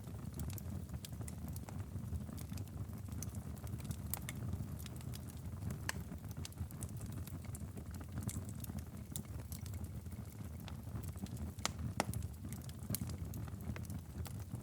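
Wood fire crackling in a fireplace: a steady low rumble of flames with scattered sharp pops and snaps, the loudest pop about twelve seconds in.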